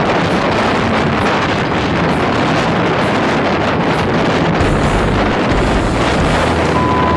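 Wind buffeting the microphone of a motorcycle riding at about 48 km/h, over the bike's engine and road noise. A short steady beep sounds near the end.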